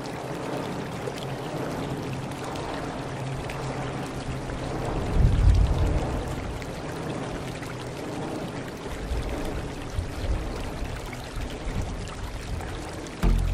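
Shallow river rushing over rocks: a steady wash of water noise. Deep swells come about five and nine seconds in, and music with a deep bass begins just before the end.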